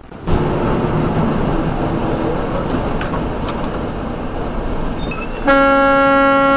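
Steady engine and road noise inside a semi-truck cab at highway speed, then, about five and a half seconds in, a truck horn sounds one long, steady blast, a warning to a truck cutting across toward an exit.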